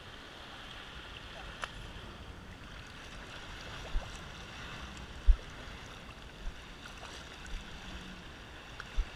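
Shallow beach water lapping and washing at the shoreline, a steady soft hiss of small waves. Several brief low thumps on the microphone break through it, the loudest about five seconds in.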